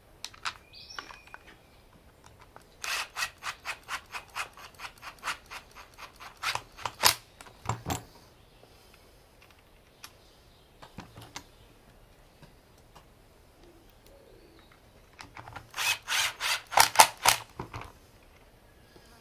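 Screws being driven back into a Metabo angle grinder's housing with a Torx-bit screwdriver: two runs of quick, evenly spaced rasping clicks, about four a second, the first a few seconds in and the second near the end.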